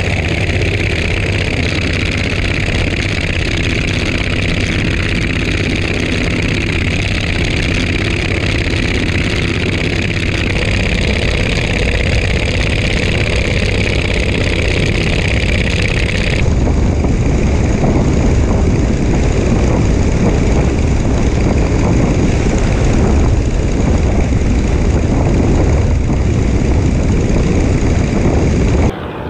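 Verner Scarlett 5Si five-cylinder radial engine running steadily at high power with its propeller, through the takeoff roll and climb, with a broad rush of air over the microphone. The sound changes abruptly about halfway through, the high hiss dropping away.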